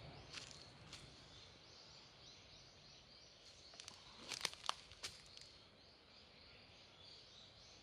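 Faint outdoor ambience with distant high chirping, broken about four to five seconds in by a short cluster of soft crunches and clicks.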